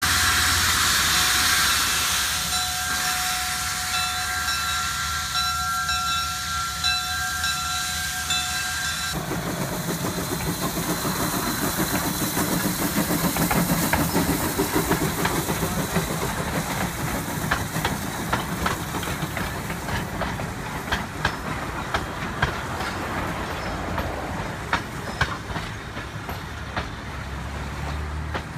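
Viscose Company No. 6 steam locomotive blowing its steam whistle, a steady chord of several tones, for about the first nine seconds. Then the train runs past with steam hissing, and its wheels set up a quick run of clicks on the rail joints in the second half.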